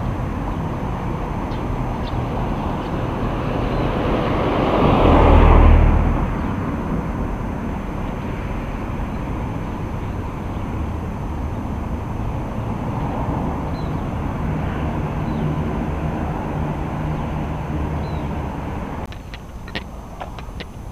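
Steady road and wind noise on the microphone while moving along a street, with a vehicle passing close about five seconds in. The noise drops away near the end, where a few small clicks follow.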